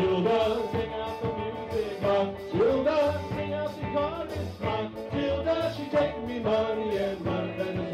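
Live calypso band playing, with electric guitar and a steady drum beat under a gliding melody line.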